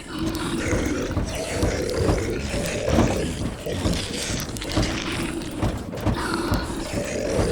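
Horror sound-effect mix of moaning zombie voices layered with creaking and rattling, over a steady background haze.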